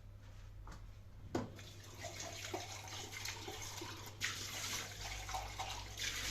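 Water running, starting about a second and a half in, with a few clinks and knocks.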